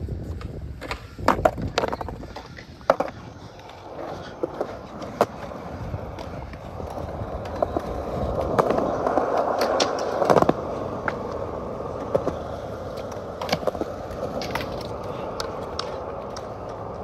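Skateboard wheels rolling on concrete, with several sharp clacks of the board striking the ground in the first few seconds. A louder rolling rush builds in the middle and ends with a hard slap about ten seconds in, followed by steadier rolling with small clicks.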